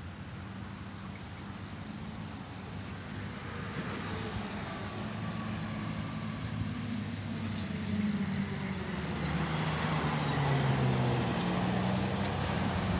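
Road traffic passing, tyre noise and engine hum, with a few vehicles sweeping by in falling pitch. Over the last few seconds a heavy flatbed truck's engine grows louder as it passes close.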